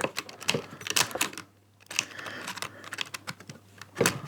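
Irregular sharp clicks and knocks of a blade being handled and fitted into a Parkside PSTDA 20-Li B3 cordless jigsaw's spring-loaded twist blade clamp. There is a short pause about a second and a half in and a louder knock near the end.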